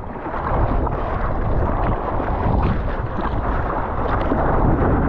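Sea water rushing and splashing right at a GoPro held at the ocean surface, with a steady rumble of wind on the microphone, as a surfboard is pushed into a wave.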